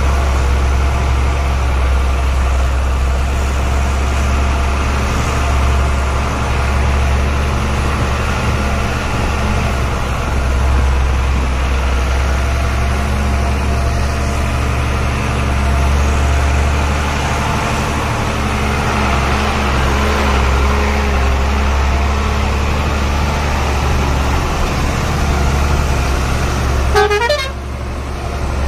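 Truck engine running steadily, a low drone with a constant pitch. Near the end a brief falling chirp sounds, and the engine noise drops slightly after it.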